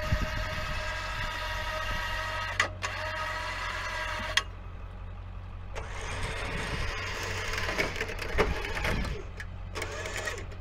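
Tow truck's winch whining steadily as it hauls a tipped-over mini excavator upright, over the steady low hum of the truck's engine. The whine stops about four seconds in, and a rougher, noisier mechanical sound follows for a few seconds.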